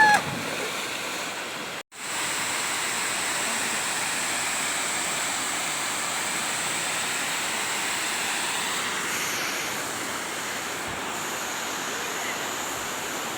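Steady rushing of water falling over a waterfall, with an even level throughout except for a brief complete cut-out about two seconds in.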